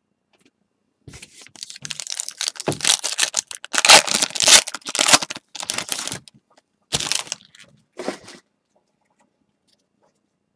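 Foil trading-card pack being torn open by hand, the wrapper tearing and crinkling for about five seconds, loudest midway. Two short rustles follow.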